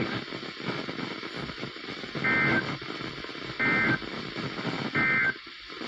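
NOAA Weather Radio SAME data bursts: three short, buzzy two-tone digital bursts about 1.4 s apart, beginning about two seconds in, over receiver hiss. The three-burst pattern is the end-of-message code that closes the weekly test broadcast.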